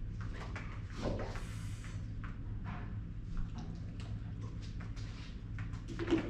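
Steady low room hum with scattered light taps and rustles, the most noticeable about a second in and near the end.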